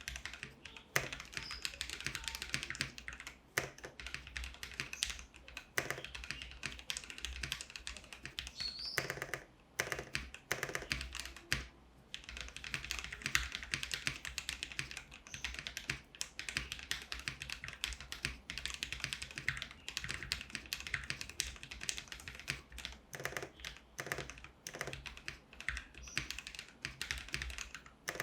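Typing on a budget gasket-mount 60% mechanical keyboard (Cheap60 kit) fitted with lubed Tecware Pearl linear switches and PBT doubleshot keycaps: a fast, continuous run of keystrokes, with a couple of brief pauses.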